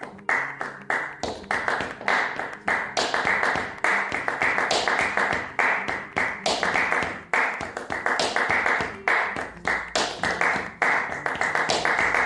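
Flamenco palmas: two people clapping hands in a steady rhythm, several sharp claps a second.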